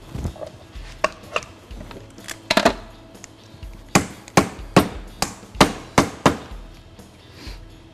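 Kitchen shears striking a raw lobster claw to crack its hard shell: a few lighter knocks, then a quick run of about seven sharp cracks, two or three a second, about halfway through.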